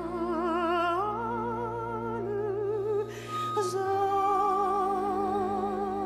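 Slow classical music: a singer holding long notes with wide vibrato over a steady, sustained low accompaniment.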